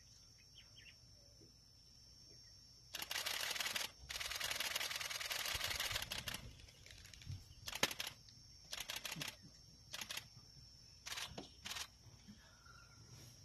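Camera shutters firing in continuous bursts of rapid clicks: a long burst of about three seconds starting about three seconds in, then five or six short bursts. A faint steady high whine sits underneath.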